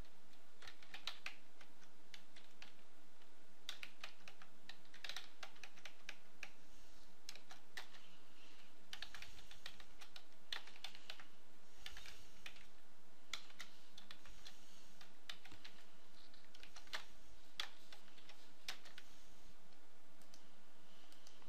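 Keys typed on a computer keyboard in irregular runs of quick taps with short pauses between them.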